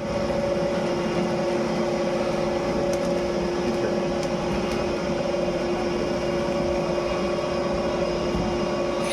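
Soap-factory machinery running with a steady, even hum that holds two constant tones over a broad machine noise.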